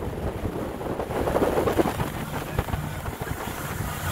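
Four outboard motors on a fishing boat running at speed, a steady low drone, with wind buffeting the microphone and the rush of the hull through the water.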